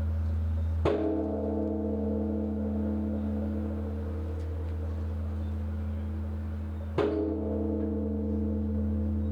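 Large Korean Buddhist bronze temple bell (beomjong) tolled to announce evening worship. It is struck twice, about six seconds apart, and its deep hum rings on without a break between strokes.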